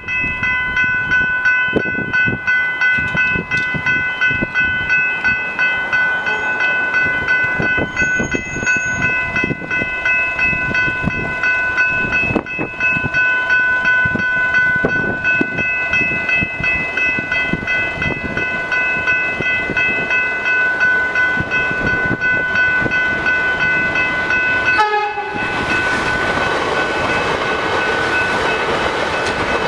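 Level crossing electronic bells (General Signals Type 3 E-bells) ringing steadily with repeated strokes as the crossing warns of an approaching train. About 25 seconds in, an electric suburban train passes through the crossing and its rushing wheel and motor noise rises over the bells.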